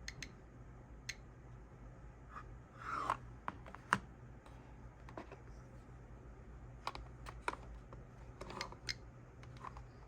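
Radiation detector clicking at random, uneven intervals, one to three clicks a second, each click a detected count. A brief scuffing noise comes about three seconds in, over a steady low hum.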